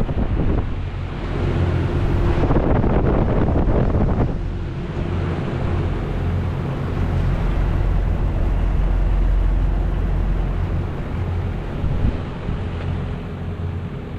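Two 2016 Toshiba 3.5-ton heat pumps running with a steady low hum. A louder rushing noise swells and dies away in the first few seconds.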